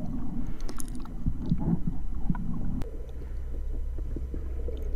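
Water around an action camera in its underwater housing: low rumbling and sloshing with a few soft knocks. A sharp click comes about halfway through, and a steadier low rumble follows it.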